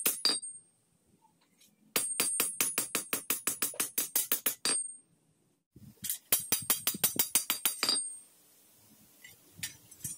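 Hand hammer striking a steel sword blade on an anvil in quick runs of ringing blows, about seven a second, with two short breaks; the blade is being hand-forged from old spring steel. After about eight seconds the hammering stops and only a few faint taps remain.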